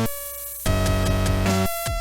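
Electronic background music with a heavy bass, synth chords switching in short blocks about every half-second to second.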